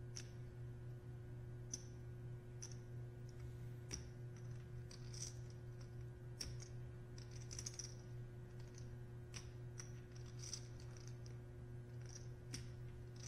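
Poker chips clicking together at irregular intervals as a player handles and shuffles a stack, over a low steady hum.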